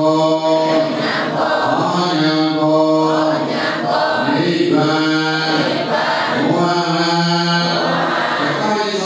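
A large congregation of lay Buddhists chanting together in unison, each phrase sung on long held notes.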